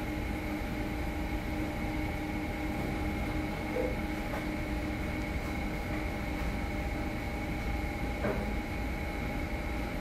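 Steady mechanical hum of kitchen equipment, with a few constant tones running through it and a couple of faint clicks, at about four and eight seconds in.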